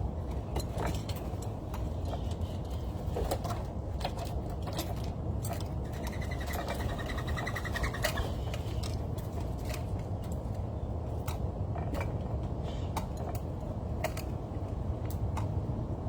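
Small birds calling, with scattered short sharp chirps and, about halfway through, a run of rapidly repeated high notes, over a steady low rumble.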